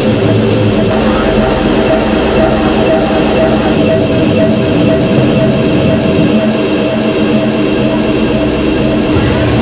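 Dark, droning electronic soundscape: a dense, steady drone with sustained high tones over a low bass note that shifts every few seconds.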